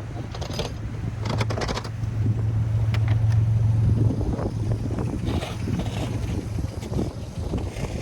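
Minivan engine running low and steady as it tows a table used as a plow through snow, with scraping, crunching and scattered knocks from the dragged table. The engine hum is strongest a second or so in.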